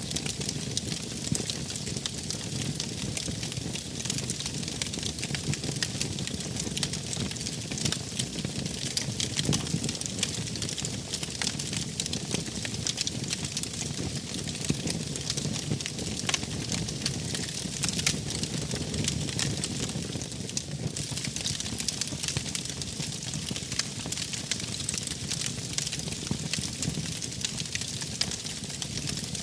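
Wood fire crackling steadily, with many small quick pops over a low rush of flame.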